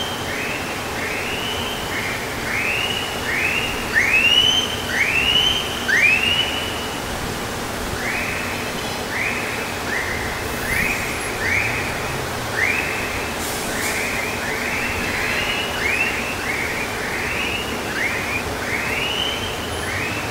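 A siren yelping in quick rising whoops, about one and a half a second, loudest a few seconds in, over the steady noise of city traffic.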